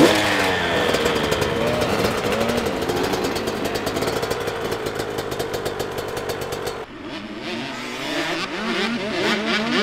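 KTM 125 two-stroke dirt bike engine running close by, revving up at the start and then holding a steady note. About seven seconds in the sound changes to dirt bikes riding a motocross track, their engines rising and falling in pitch as the riders work the throttle.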